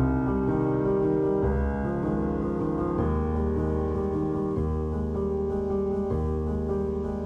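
Instrumental outro music with slow, held chords that change about every one and a half seconds.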